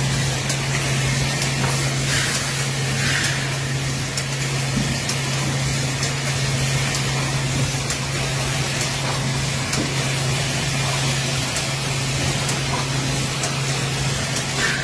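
Automatic tube filling and cartoning machine running: a steady motor hum under a constant hiss, with light clicks and two short hisses about two and three seconds in.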